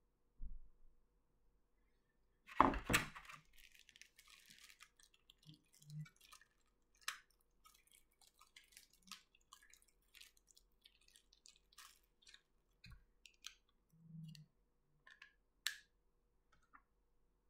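Close handling of a plastic aircraft model and its parts: plastic wrapping crinkling, with scattered small clicks and taps of plastic. A louder rustle comes about two and a half seconds in.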